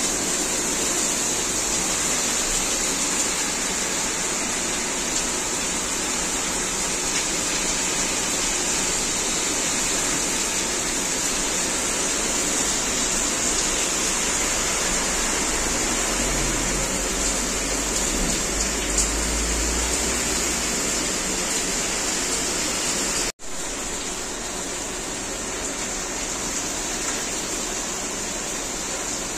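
Torrential rain pouring down onto asphalt, with water rushing across the pavement: a steady, even roar of rain and running water. A low rumble swells for a few seconds just past the middle.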